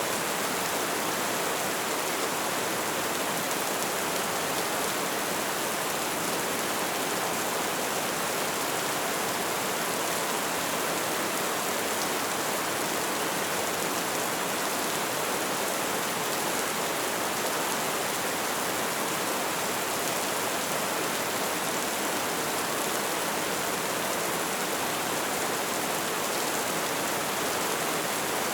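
Light rain falling in a steady, even patter.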